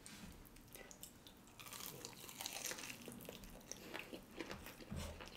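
Faint crunching and chewing of crispy, thin-battered Korean fried chicken being bitten into, with a few scattered clicks at first and denser crackling from about a second and a half in.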